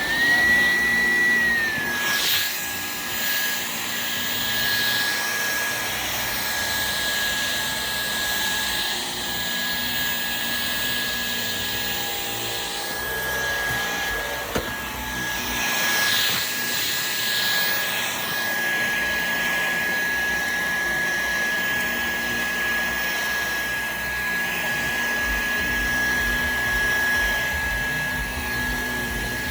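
Dyson vacuum cleaner running on carpet: a steady high motor whine over a rushing airflow hiss. Its pitch sits a little higher for the first couple of seconds, then drops and holds steady.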